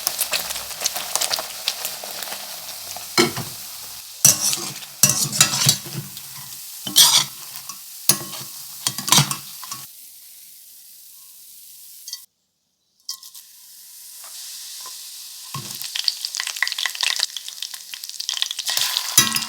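Food sizzling in hot oil in a pan while a spatula stirs and scrapes it, with a run of strokes in the first half. The sizzle then drops to a soft hiss and cuts out completely for under a second just past the middle. It returns with more stirring near the end.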